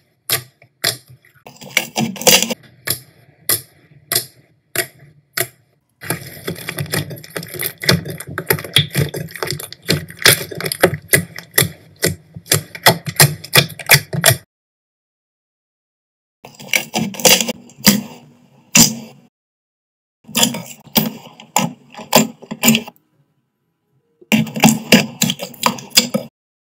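Homemade jiggly slime squished and pressed by hand against a table, giving a dense run of sticky clicks and pops. It comes in several stretches broken by dead-silent gaps.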